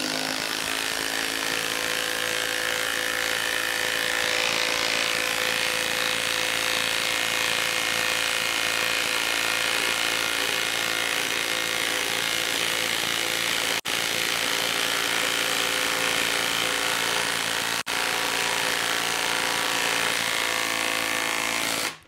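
Makita cordless impact wrench hammering continuously as it drives a 10-inch lag screw into a wooden log. The sound stops for an instant twice, about 14 and 18 seconds in.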